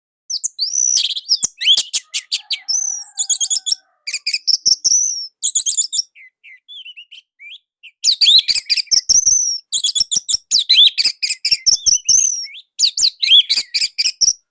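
Orange-headed thrush (anis merah) singing a loud, tight, rapid song of high chirping notes. It comes in two long bursts, with a short stretch of scattered quieter calls about six seconds in.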